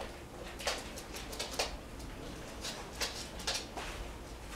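Puppy's claws clicking on a hard floor in irregular light taps as it walks and trots.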